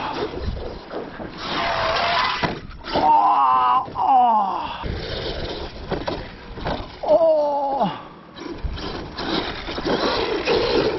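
Electric radio-controlled monster truck running across loose sand, with wind buffeting the microphone. Twice, about three seconds and seven seconds in, a sliding tone falls in pitch.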